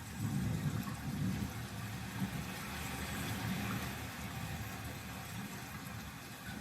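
JBL Bar 5.0 Multi Beam soundbar playing back film demo sound effects: an uneven low rumble under a steady hiss, with no speech.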